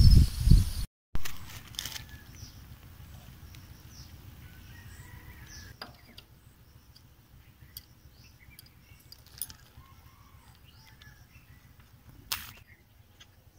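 Wind buffeting the microphone for about the first second, then a quiet outdoor background of faint scattered bird chirps. A few sharp clicks come from hand work at a power tiller's wheel hub, the loudest near the end.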